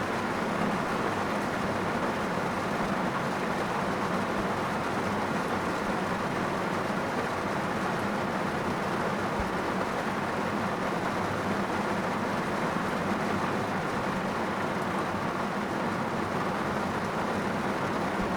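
Heavy rain falling steadily on a car's roof and windscreen, heard from inside the cabin as an even, dense wash of noise.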